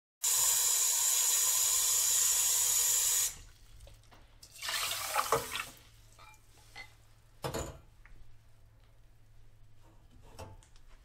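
Kitchen sink tap running in a steady stream for about three seconds, then cut off abruptly. A shorter, quieter rush of water follows, then a couple of light knocks.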